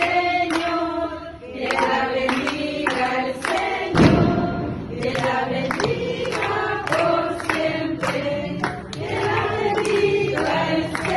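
A group of people singing together in chorus, a birthday song sung to a woman before her lit candle. A sudden low thump about four seconds in.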